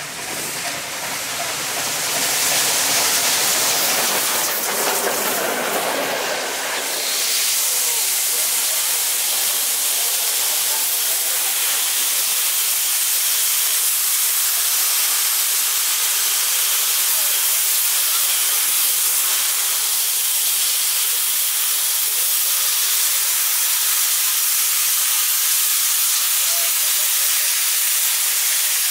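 MÁV Class 424 steam locomotive running with a low rumble, then from about seven seconds in a loud, steady hiss of steam venting from the locomotive as it stands in a cloud of its own steam.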